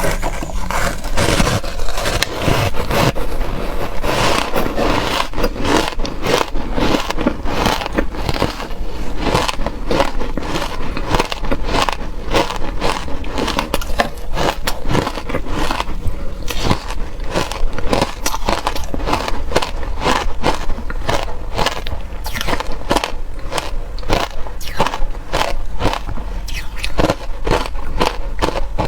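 Close-up biting and chewing of reshaped, powdery compressed ice: a continuous run of crisp crunches and crackles, about two to three a second.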